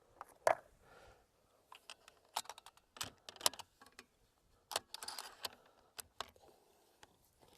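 A run of sharp metallic clicks and light rattling from handling the rifle and its scope, coming in small clusters.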